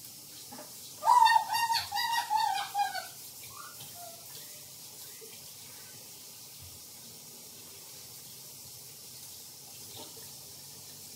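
A high-pitched, wavering vocal sound lasting about two seconds, about a second in. Then a bathroom sink faucet runs faintly.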